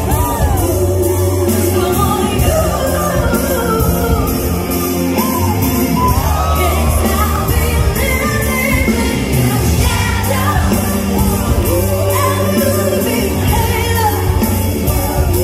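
A woman singing into a handheld microphone over loud backing music with a steady bass, her voice sliding up and down in sweeping vocal runs.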